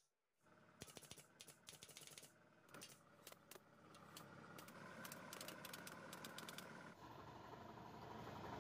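Faint workshop sounds: a quick run of sharp, irregular clicks in the first few seconds, then a steady mechanical hum that slowly grows louder.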